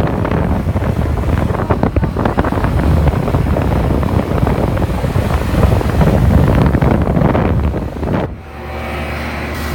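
Heavy wind buffeting and rumbling on the microphone over a running air-conditioner outdoor unit; about eight seconds in the buffeting cuts off, leaving the unit's steady hum.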